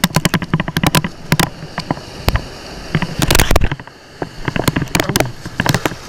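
Loud, irregular crackling and knocking of a loose cotton shirt rubbing against a chest-mounted action camera and its microphone, with a dense cluster of clicks about three seconds in.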